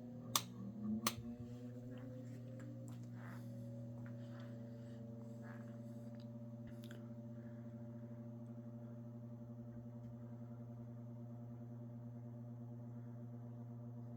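A 1960s Sears Kenmore 12-inch oscillating table fan switched on, with a few clicks near the start. Its shaded-pole motor hums steadily, with a pretty audible moan that is characteristic of this motor type. A higher tone rises over the first few seconds as the blades spin up to speed, then holds steady.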